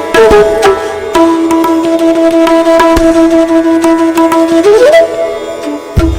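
Indian classical-style intro music: plucked string and tabla-like strokes under a long held melody note that slides up in pitch about five seconds in.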